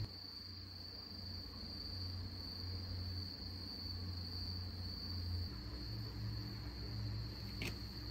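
Insects chirring in a steady high-pitched trill, over a low rumble, with a brief click near the end.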